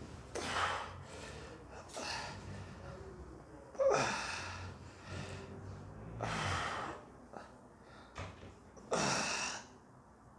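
A man breathing hard in heavy gasps, about five breaths a couple of seconds apart, as he bears painful deep-tissue pressure into the muscle on the side of his ribcage.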